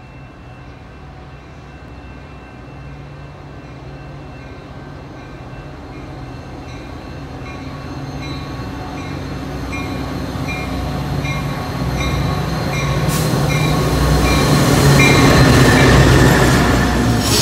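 Metra diesel commuter train approaching and passing along the platform: the locomotive's engine and the wheels on the rails grow steadily louder, loudest as the locomotive goes by near the end. Through the middle a bell dings about twice a second.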